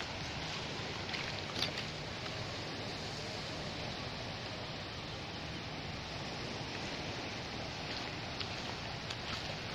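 Steady beach ambience: an even rush of wind and calm shallow water washing at the shore, with a few faint short sounds.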